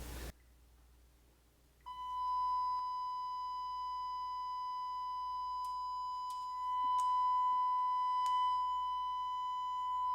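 Steady 1 kHz test tone from a signal generator, with faint overtones, starting about two seconds in and holding one pitch, with a few faint clicks over it.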